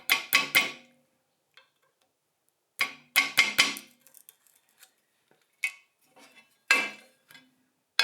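Small hammer tapping a slot screwdriver to chip leftover plastic foot remnants out of a telegraph key base. The taps are sharp and ring briefly. They come in quick runs of four or five, then singly, with pauses between.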